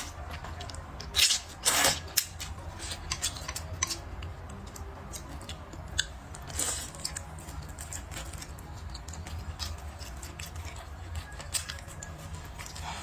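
Close-miked eating sounds: noodles slurped in two quick pulls early on and again about halfway, then wet chewing of braised beef with small mouth clicks, over a steady low hum.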